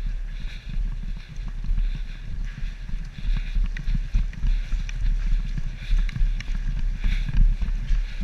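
An airsoft player on the move: footsteps and gear rustling come in a rough rhythm of about one and a half steps a second, over heavy rumbling handling noise on a body-worn camera.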